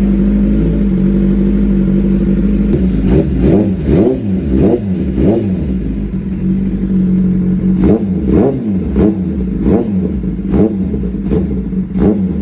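Kawasaki ZX-10R inline-four engine through an AR aftermarket exhaust, idling steadily, then blipped in quick throttle revs. A run of about five blips starts about three seconds in, then it settles back to idle, and about seven more blips follow in the second half.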